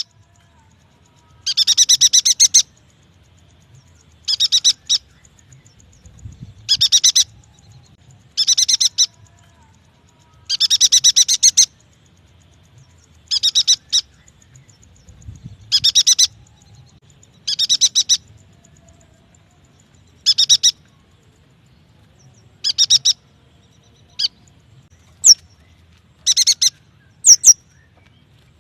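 Yuhina calling: short bursts of rapid, high-pitched chattering trills, repeated about every two seconds, with a few short sharp high notes near the end.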